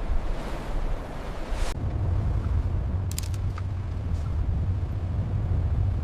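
Rushing sea-wash noise that cuts off abruptly about two seconds in, giving way to a steady low engine rumble with a few faint clicks.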